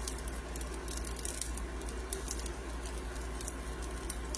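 Potatoes frying in a lidded pan on low heat: faint, scattered crackling over a steady low hum.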